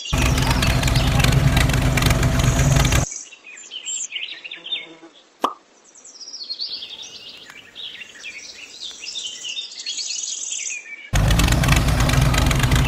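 A loud engine running, which cuts off suddenly about three seconds in. Birds then chirp for several seconds, with a single sharp click partway through. The loud engine sound starts again abruptly near the end.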